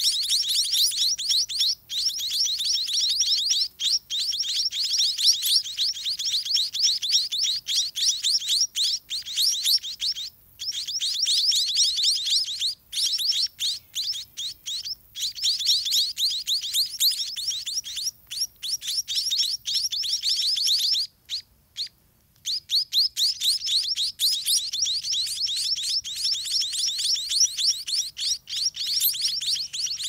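White-rumped munia nestlings begging while a parent feeds them at the nest: dense, rapid, high-pitched chirping, many short calls a second. There is a brief pause about a third of the way through and a longer one about two-thirds through.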